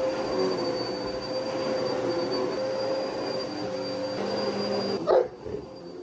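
Upright vacuum cleaner running, a steady motor whine with a high-pitched tone over it. About five seconds in there is a brief louder sound, and then the motor noise drops away for a moment.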